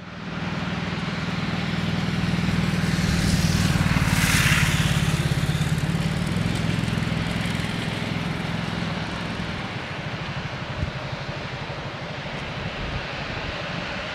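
A motor vehicle engine running with a steady low hum. A louder swell of engine and road noise builds to a peak about four seconds in, then settles back to a steady drone.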